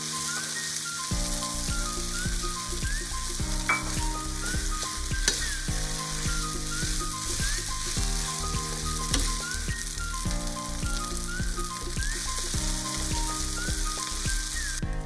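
Food sizzling steadily in a hot pan as a stir-fry cooks, under light background music with a repeating melody and beat.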